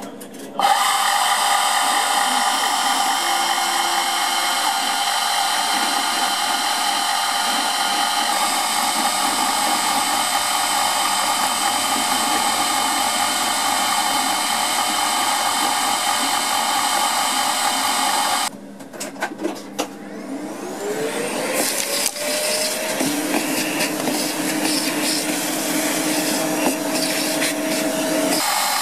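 CNC router spindle running with its cutter machining a Delrin block: a steady, high whine with the noise of cutting. About two-thirds of the way in it drops out briefly with a few clicks, then a rising whine as the spindle spins back up and settles into a steady run again.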